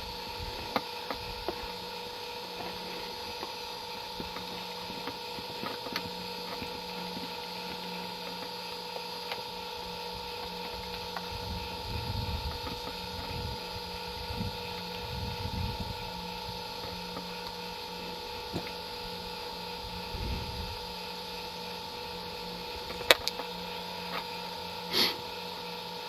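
Steady electrical hum with a few gusts of wind on the microphone and scattered faint clicks, one sharp click near the end.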